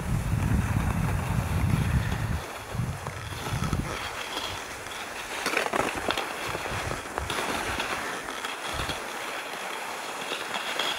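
Steady scraping hiss of travel over a packed snow track behind a malamute pulling on its leash, with a low rumble for the first few seconds and a scratchier stretch around the middle.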